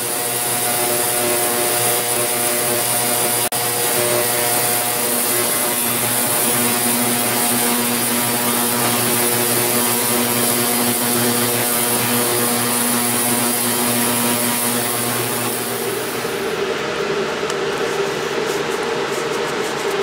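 Benchtop ultrasonic cleaner running with a silver pendant in its water, Simple Green and ammonia bath: a steady loud hiss over a buzzing hum. The high hiss cuts off about sixteen seconds in as the cleaning stops, leaving a lower hum.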